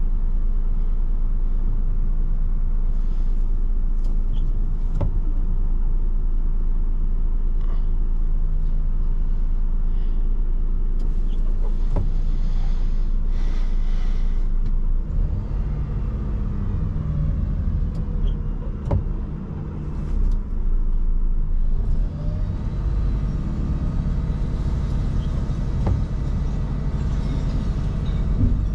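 Renault refuse truck's diesel engine running, heard from inside the cab, with scattered clicks and knocks. The engine note shifts about halfway through and again a few seconds later.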